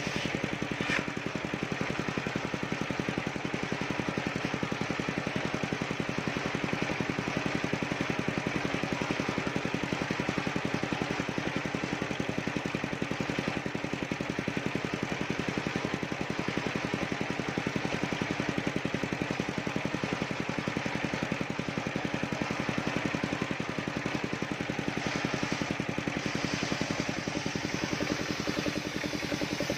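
Large engine-driven circular saw running steadily while its blade rips sengon (albasia) planks lengthwise, the engine hum and the cutting noise going on without a break.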